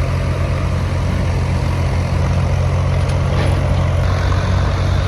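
A heavy engine running steadily with a loud, low drone.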